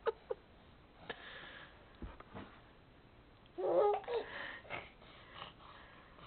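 A baby babbling, with one loud happy squeal about three and a half seconds in and a few shorter sounds after it. At the start there are a few quick light taps, his hands slapping the mirror glass.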